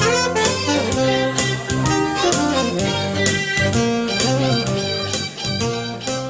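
Music led by guitar, over a steady beat.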